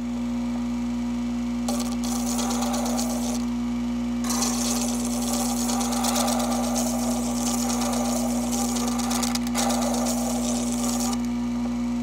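Gem faceting machine's motor humming steadily while a ruby on a dop stick is pressed against its wet, spinning lap. The stone on the lap gives a hissing, scraping sound in stretches: from about two seconds in, then again from about four seconds to near the end, with a brief break.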